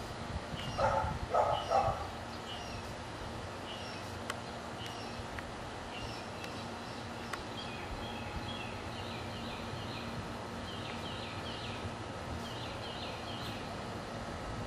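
A dog barks three times in quick succession about a second in. Small birds chirp in short repeated notes throughout, more busily in the second half.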